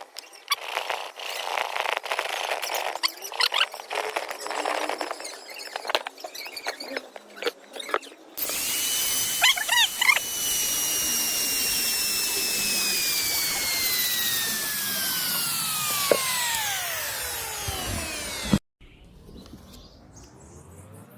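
Scratchy scraping and rubbing for about eight seconds, then a power tool's motor starts suddenly with a high whine that falls steadily in pitch for about ten seconds and cuts off abruptly.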